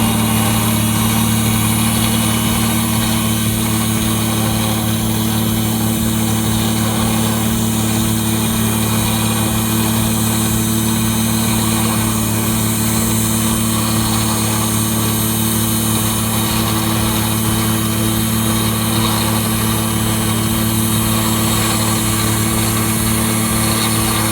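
Borne 12,000 lb electric winch running steadily, its motor and gear train humming with a high whine as it reels in slack cable onto the drum. It stops near the end, once the cable is drawn tight.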